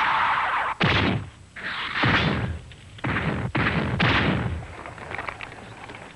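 A run of about five sudden impact or blast sound effects from a cartoon fight, each hitting hard and fading out quickly, packed into the first four seconds before things quieten.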